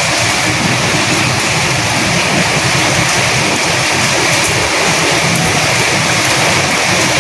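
Steady heavy rain with wind, a dense even hiss of falling drops.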